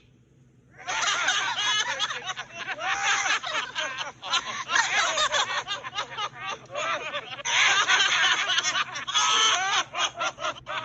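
Cartoon voices laughing and snickering, starting about a second in after a brief silence and carrying on in quick, high-pitched bursts.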